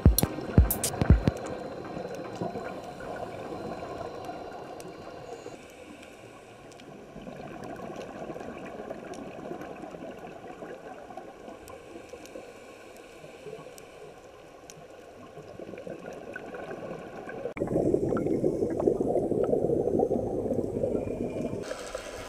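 Scuba regulator bubbles gurgling, heard underwater through the camera housing, with a louder rush of exhaled bubbles lasting about four seconds near the end. A few sharp knocks come in the first second or so.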